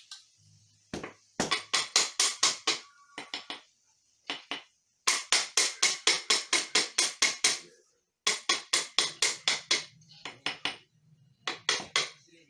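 Rapid knocking in runs, about seven sharp knocks a second, stopping and starting several times, the longest run lasting over two seconds.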